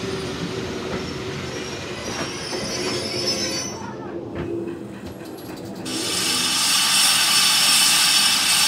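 Steam-hauled train's coach wheels running slowly into a station, squealing with a steady whine and a brief high screech, then clicking over rail joints as the train slows. About six seconds in this gives way suddenly to a loud, steady hiss of steam from standing steam locomotives.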